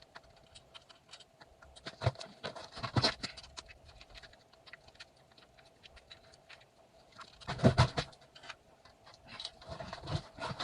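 Hand tools and metal parts clicking, scraping and knocking as the old suspension spring is worked off a mountain bike. The handling comes in scattered taps, with two busier stretches about two to three seconds in and around eight seconds.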